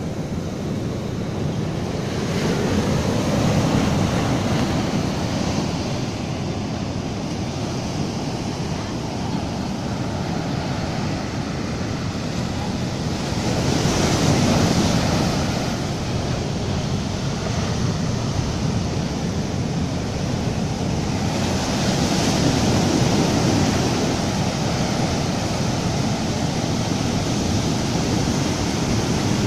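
Surf on a sandy beach: waves breaking and their foaming swash running up the sand and draining back. The rush of water swells louder three times, about two, fourteen and twenty-two seconds in.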